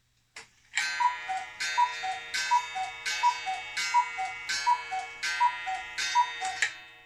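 Sternreiter one-day Black Forest cuckoo clock calling the hour: about eight two-note cuckoo calls from its wooden whistles, high then low, each with a ringing gong strike, evenly spaced; the last strike rings away near the end.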